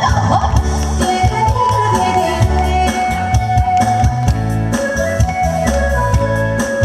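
Trot song music with a steady drum beat and a sustained melody line.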